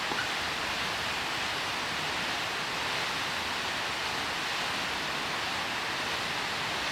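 Steady, even rush of a waterfall, a constant wash of falling water with no change in level.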